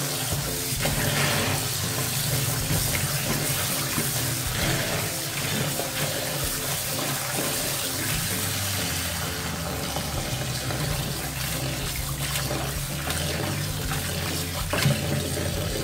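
Kitchen tap running steadily into a plastic basin of cut vegetables, with hands swishing and rubbing the vegetables in the water as they are rinsed.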